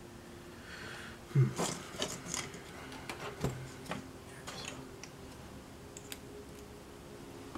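Small craft pieces and tools being handled and set down on a desk: a scatter of light taps, clicks and rubbing, busiest between about one and four seconds in, over a faint steady hum.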